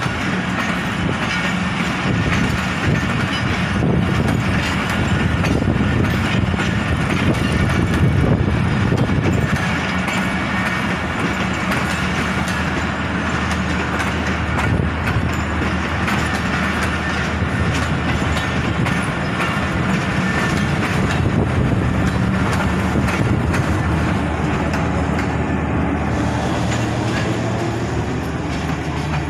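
Pakistan Railways passenger coaches of the Jaffar Express rolling past, their wheels clicking steadily over the rail joints over a constant rumble. Near the end, as the power van goes by, the clatter thins and a steady low hum is left.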